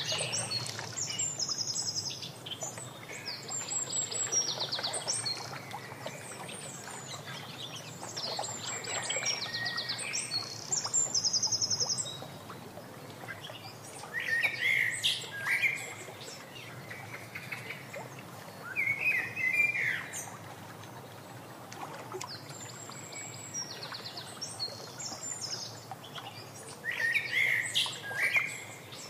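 Wild songbirds singing in repeated short phrases: rapid high trills at first, then shorter chirping calls a little lower in pitch from about halfway through, over a steady low outdoor hiss.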